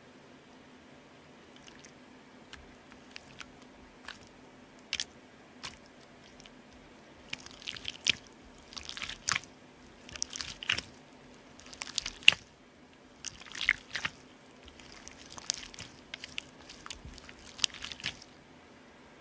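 Clear borax slime being stretched, pressed flat against a glass tabletop and squeezed in the hands, making wet, sticky clicks and pops: scattered at first, then dense crackling clusters from about seven seconds in.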